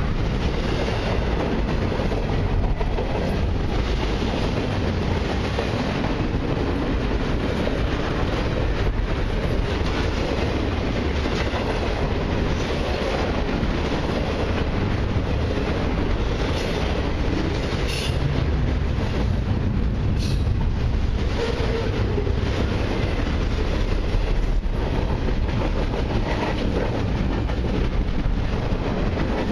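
Double-stack intermodal well cars of a freight train rolling past: a steady rumble and clatter of steel wheels on rail, with wheels clicking over rail joints. Two brief sharp high metallic sounds come about two-thirds of the way through.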